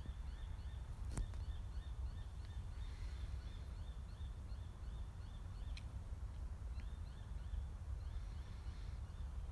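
Outdoor ambience: a rapid run of short, high chirps, about three a second, that fades out about six seconds in, over a steady low rumble. A single sharp click comes about a second in, and a faint high warble near the end.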